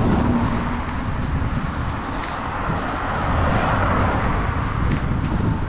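Steady wind and road noise on a bicycle-borne microphone moving along a road, with traffic sound mixed in.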